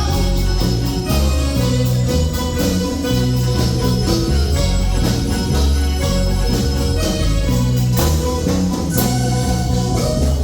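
Music from a band, with a heavy bass line changing notes every second or so, percussion, and melody instruments.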